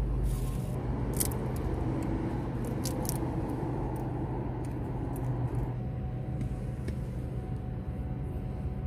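Steady low background rumble with a constant hum, the outdoor drone of traffic or machinery, with a few faint light clicks over it.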